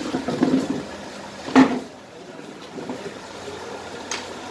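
Room noise of a busy eating room: a steady background hiss with a faint murmur of voices, broken by one sharp, loud thump about a second and a half in.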